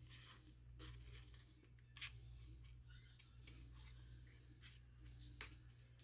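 Faint, scattered clicks and scrapes of plastic pry cards working under a MacBook battery held down by strong adhesive, with a sharp tick about one, two and five and a half seconds in over a low steady hum.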